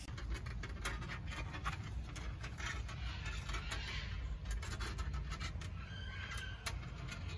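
Rapid, irregular clicks and scratching over a steady low rumble, with a faint short squeak-like tone about six seconds in.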